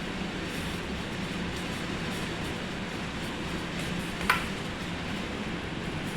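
Front-load washing machine running with a steady hum, and one sharp click about four seconds in.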